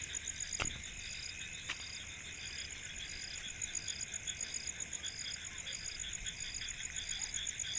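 Crickets chirping steadily: a rhythmic, high-pitched pulsing with a faster trill above it. Two sharp clicks come in the first two seconds.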